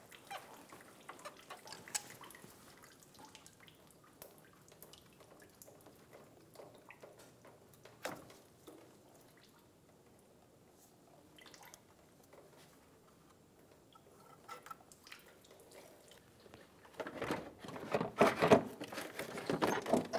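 Faint dripping and small metal clicks as pliers release a transmission cooler line clamp and the hose comes off the radiator, letting fluid drip out. Near the end, louder scraping and clattering of the plastic cooling fan assembly being lifted out of the engine bay.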